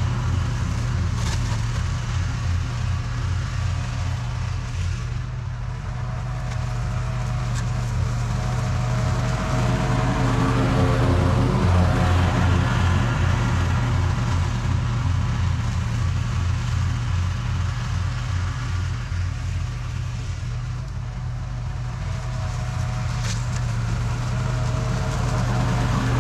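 Toro TimeCutter SS4260 zero-turn riding mower running steadily while mowing grass, its engine hum swelling and fading slightly twice.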